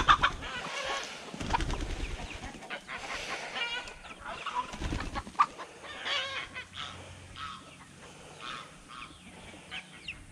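A flock of chickens clucking and calling, many short calls overlapping. A chicken beats its wings loudly at the very start.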